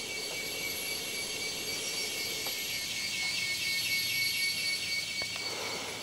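Rainforest insects droning: a steady high-pitched buzz of several held tones, with a rapid pulsing trill swelling through the middle.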